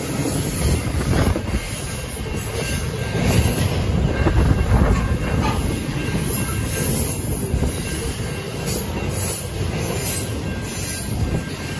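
Loaded freight wagons rolling past close by: steel wheels rumbling on the rails with occasional clacks.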